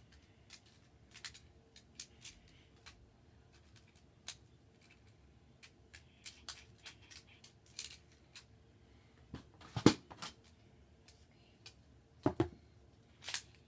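Plastic magnetic building tiles clicking together as they are set in place, a string of irregular sharp clicks with a few louder knocks about ten and twelve seconds in.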